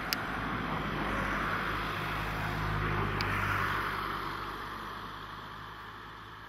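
A vehicle passing by: a broad noise with a low steady hum that swells to its loudest about three seconds in, then slowly fades. A sharp click comes near the start and a fainter one about three seconds in.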